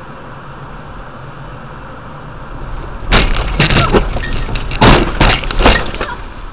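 Steady road and engine noise inside a moving car. About three seconds in, a run of about six loud, sharp bangs and cracks follows over some three seconds.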